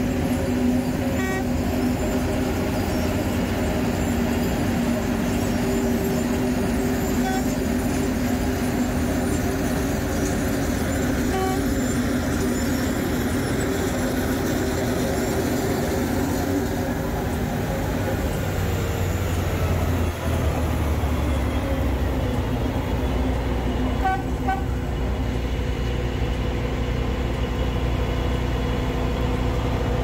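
Heavy construction machinery engines running steadily, a continuous drone, with a few short horn toots; the drone deepens about two-thirds of the way through.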